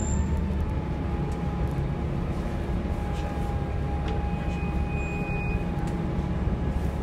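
Single-deck diesel bus engine heard from inside the passenger saloon, running with a steady low rumble and a faint steady whine above it.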